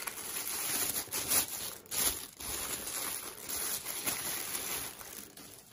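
Plastic bubble-wrap bag crinkling as hands pull it off a camera lens, an irregular crackle that fades near the end.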